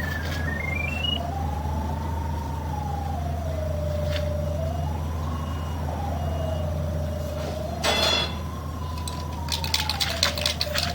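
Electronic pipe locator's tone wavering slowly up and down in pitch as it tracks the sewer camera's sonde, over a steady low hum. A short clatter about eight seconds in and scattered knocks near the end.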